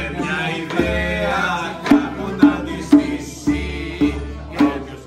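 Music: a song with a singing voice over a steady beat of about two strikes a second.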